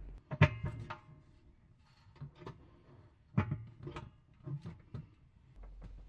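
Spade connectors being pushed onto a new electric oven bake element's terminals and the metal element being handled: a few quiet, scattered clicks and clinks, the loudest about three and a half seconds in.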